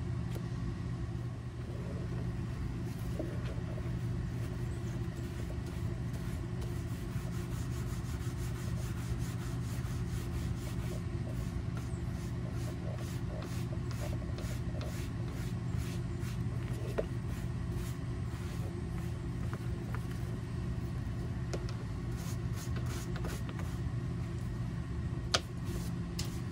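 A sponge soaked in leather dye rubbing in quick strokes along a leather belt strip. The rubbing is faint under a steady low background hum, and there is a single sharp tick near the end.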